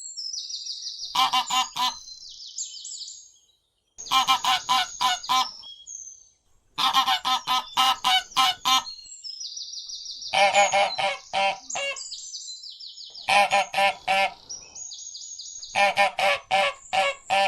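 Wild ducks quacking in runs of several quick calls, about six runs, while small birds chirp and trill high in the gaps.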